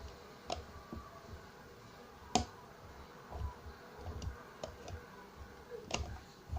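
A few sharp clicks and taps from handling a toy-style alarm clock and its unscrewed parts, the loudest about two and a half seconds in and another near the end, over low dull handling bumps.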